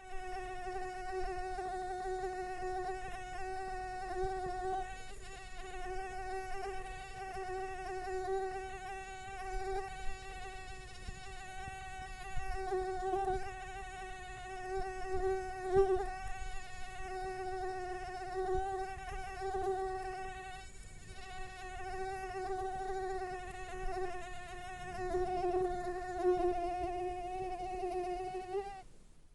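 A mosquito in flight: the continuous whine of its wingbeats, wavering slightly in pitch and swelling and fading in loudness. It cuts off just before the end.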